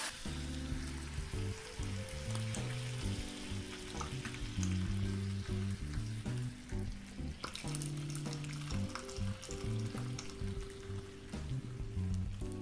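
Background music, a simple melody of held low notes, over a faint crackling hiss.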